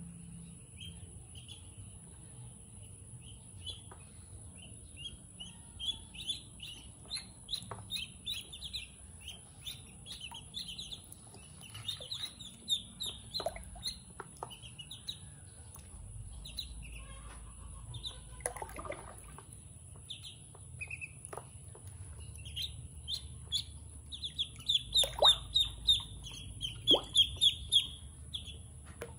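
Ducklings peeping, a run of short high chirps that grows busier and louder in the last few seconds. Water splashes now and then as they paddle and bathe in a basin.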